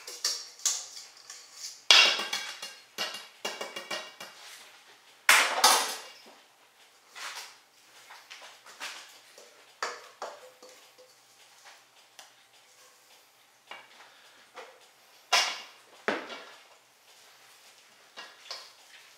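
Spatula scraping and knocking against stainless-steel mixing bowls as a thick batter is scraped out of one bowl into another, with several loud clanks of metal on metal and softer scrapes between; stirring near the end.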